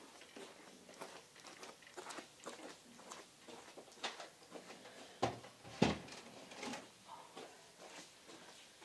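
Footsteps in stiletto heels on carpet with small clicks and rustles, and two louder knocks about half a second apart a little past the middle as a box is set down on a wooden cabinet.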